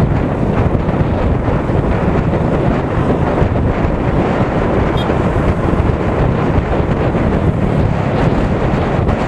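Steady, loud wind rushing over the microphone of a camera on a moving motorcycle, with road noise underneath.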